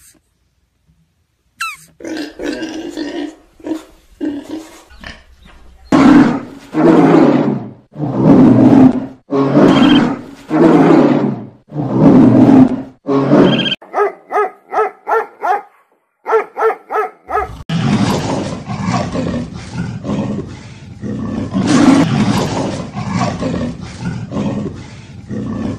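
Animal roars: quieter growls at first, then a run of about seven loud roars of about a second each, a stretch of quick rhythmic pulses, and a long unbroken rough roar near the end.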